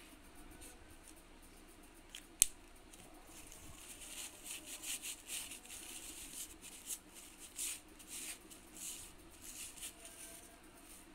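Tissue rustling and rubbing as a foam stamp on a wooden block is wiped clean, in a run of short, irregular scratchy strokes. A single sharp click comes about two seconds in, before the wiping starts.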